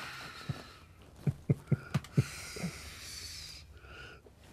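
Soft human laughter: a few short, separate chuckles and a breathy exhale.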